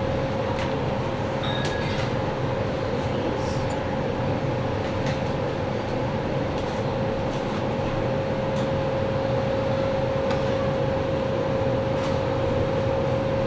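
Steady machine hum with one constant mid-pitched tone running through it, and a few faint ticks.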